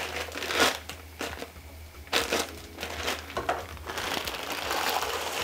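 Crinkling and rustling of a plastic packet of dry spiral pasta as it is handled and opened, in irregular sharp crackles that thicken into a continuous rustle near the end.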